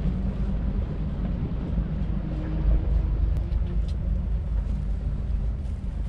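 Wind buffeting an outdoor microphone: a steady, fluctuating low rumble, with a faint hum in the middle.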